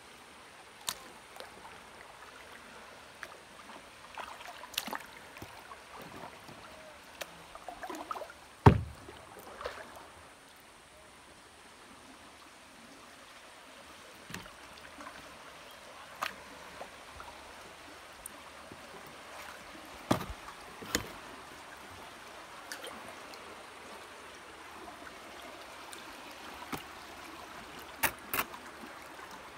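Kayak paddling on a creek: soft splashing of paddle strokes in the water, broken by scattered sharp knocks, the loudest about a third of the way in and a quick pair near the end.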